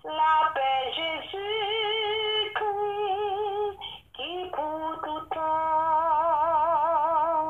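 A solo voice singing a slow hymn unaccompanied: long held notes with wide vibrato, in phrases broken by short pauses for breath, one about four seconds in.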